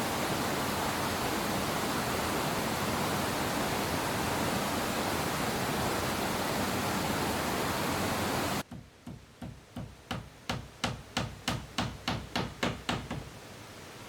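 A steady rushing noise that cuts off abruptly about eight seconds in, followed by a run of about fourteen sharp hammer blows that quicken to about three a second, as if nails are being driven into wood.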